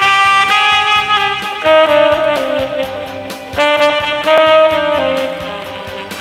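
Tenor saxophone playing a slow melody in long held notes, phrase after phrase, over an accompaniment with a steady beat.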